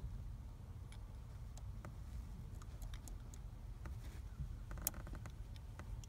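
Faint, scattered clicks and light ticks of small metal parts being handled as a tiny screw is fitted back into the ignition lock cylinder housing, with one sharper click about five seconds in, over a low steady rumble.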